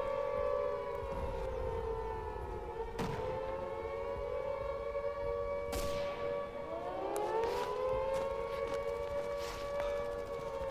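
Air-raid siren wailing in overlapping tones. Its pitch sags a little about two to three seconds in and climbs back up around seven seconds. Two sharp hits cut through it, about three and six seconds in.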